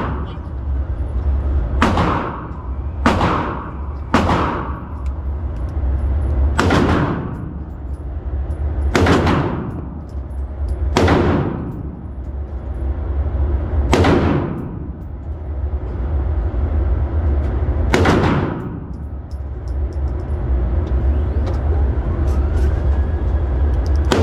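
Eight handgun shots fired one at a time at an unhurried, uneven pace, each cracking sharply and ringing off, over a steady low rumble.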